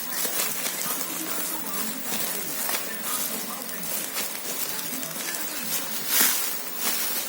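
Rustling and crinkling from handling a foam yoga mat and its packaging, in many short irregular scuffs, with one louder rustle about six seconds in.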